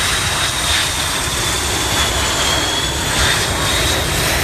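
Blue Angels F/A-18 Hornet jets taxiing, their engines giving a loud, steady rush with a high whine that sags a little in pitch and climbs again near the end.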